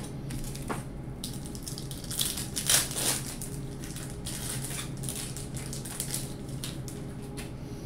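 Plastic wrapper of a 1998 Score football card pack crinkling and tearing as it is ripped open by hand, loudest about two to three seconds in.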